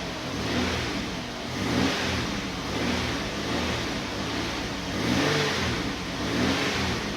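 Chevrolet Uplander minivan engine being revved up and down several times in quick blips. It has a misfire.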